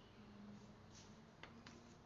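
Near silence: faint room tone with a low hum, and two faint ticks about a second and a half in.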